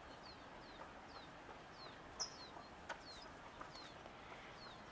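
Faint small-bird chirping: short, high notes that slide downward, repeating about twice a second, with a couple of louder chirps a little past two seconds in. A single sharp click just before three seconds.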